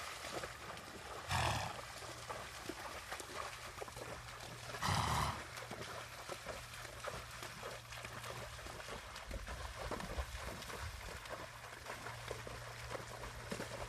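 Horse moving through shallow water, its hooves splashing steadily. Two short, louder bursts stand out, about a second and a half in and about five seconds in.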